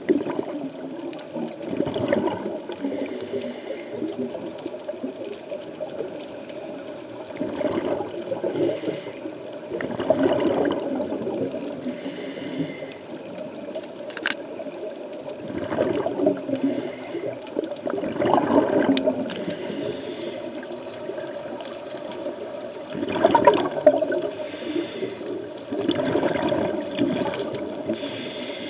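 Scuba regulator breathing heard underwater: rushes of bubbling exhaust every few seconds, often two close together, over a steady underwater hiss, with one sharp click about halfway through.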